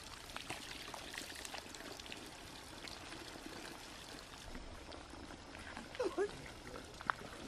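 Spring water pouring steadily from the spouts of a metal standpipe and splashing onto the wet ground and boards, running over hands and, near the end, into a plastic bottle held under a spout.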